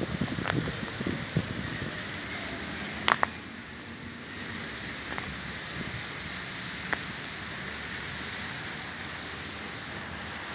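Hail falling onto a rubber playground surface: a steady patter with occasional sharper clicks of single stones striking close by, the loudest a double knock about three seconds in.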